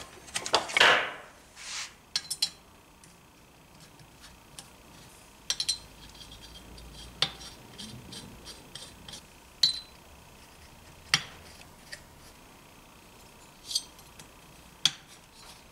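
Small metal clinks and taps of washers and nuts being fitted and threaded by hand onto the cylinder-head studs of a Motobecane AV7 moped engine, with a louder clatter in the first second and then single sharp clinks every second or two.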